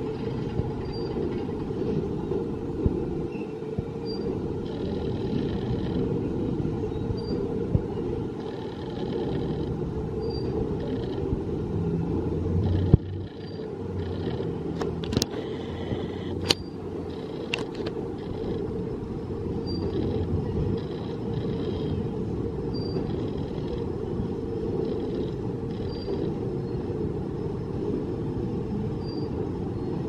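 Zamperla Windstorm roller coaster train running on its steel track, a steady rumble. A few sharp clanks come about halfway through.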